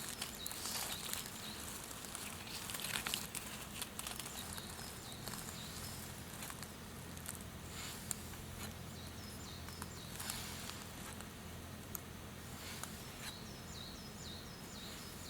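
Knife blade being stropped on a leather belt: faint, irregular strokes with a few sharper scrapes, the loudest about three and ten seconds in, to polish the freshly sharpened convex edge.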